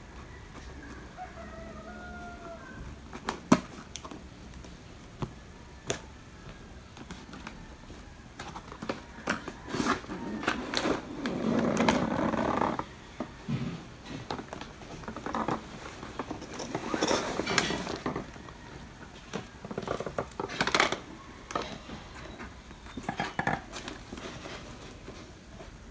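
Cardboard laptop box being cut open and unpacked by hand: a few sharp snips and clicks, then irregular scraping and rustling of cardboard flaps, the inner tray and the foam wrapping.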